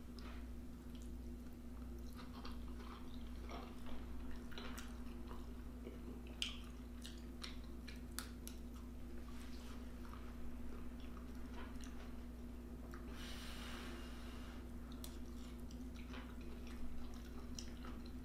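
Close-up chewing and wet mouth sounds of someone eating a mouthful of pepper steak, rice and vegetables, with scattered small clicks and crackles. A steady low hum runs underneath.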